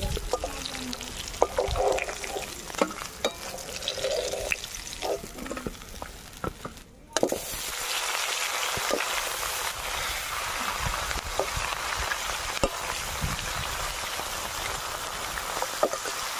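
Rohu fish pieces being scooped out of hot oil with a metal spatula, which clicks against the wok several times. After a short break, a rohu head frying in the oil with a steady sizzle.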